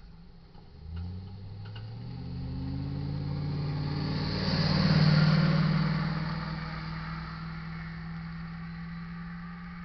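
Delivery truck's engine accelerating and the truck driving past close by. It rises in pitch about a second in, is loudest with tyre hiss around five seconds in, then fades away steadily.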